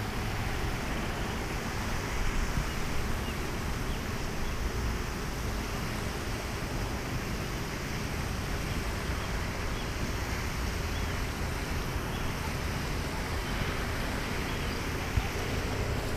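Steady wind noise rushing over the microphone, an even hiss and rumble with no clear events.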